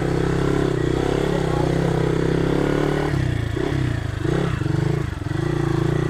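Motorcycle engine running under load on a rough, slippery climb. Its note holds steady, wavers and dips a few times about halfway through, then settles again.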